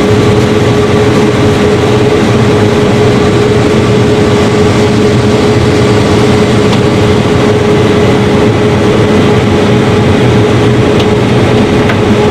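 Combine harvester running steadily while harvesting corn: a constant engine drone with a steady whine above it.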